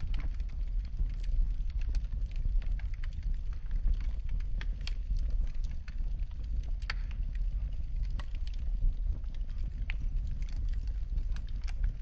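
Fire in a fireplace crackling, with frequent sharp pops scattered irregularly over a steady low rumble.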